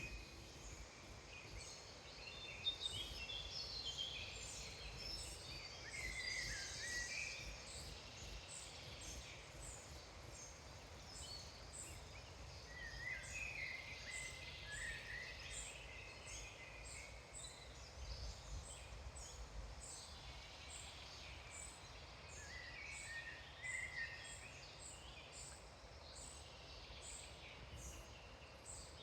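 Chorus of woodland songbirds: several birds singing at once, with overlapping song phrases and chirps and a thin high note repeated over and over, above a low steady rumble.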